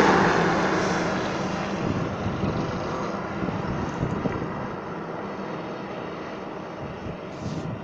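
A road vehicle passing close by, its engine and tyre noise fading away over the first two or three seconds and leaving a steady low road noise.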